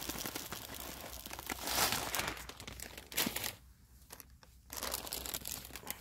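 Plastic bait bag crinkling and rustling as dry pellets are tipped into a mixing bowl, loudest about two seconds in, with a short lull near the middle.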